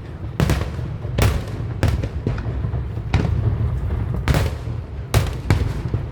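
Aerial fireworks bursting: a rapid string of sharp bangs, several a second at times, over a continuous low rumble of shells.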